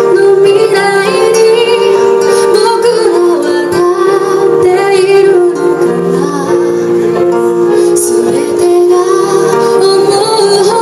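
A song playing: a woman singing over sustained instrumental backing.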